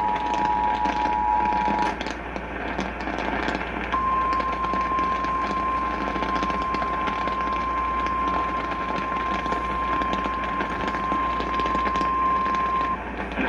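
The end of the Emergency Alert System two-tone attention signal, which stops about two seconds in, followed by a single steady NOAA Weather Radio warning alarm tone held for about nine seconds. Radio static and crackle run under it throughout.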